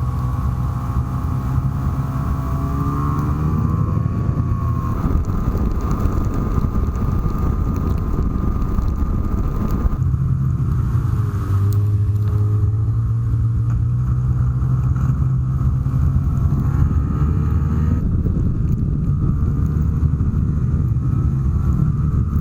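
Snowmobile engine running under way, its pitch rising and falling as the throttle is worked, easing off and coming back up about halfway through, with a steady rush of track and wind noise.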